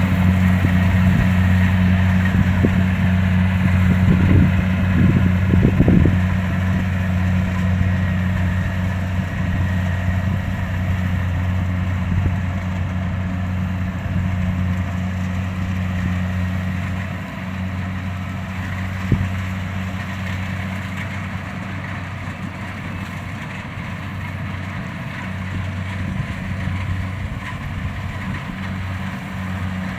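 Kubota DC-70 combine harvester's diesel engine running at a steady speed with a constant low drone. A few knocks come about four to six seconds in, and one sharp click comes a little past the middle.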